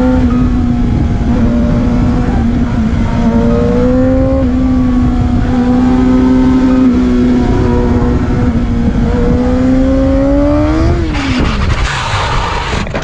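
Sport motorcycle engine running hard at high revs on the move, its pitch climbing as it accelerates, once around four seconds in and again towards eleven seconds. Just after that the revs drop sharply, and a loud, harsh rushing noise follows for about a second and a half.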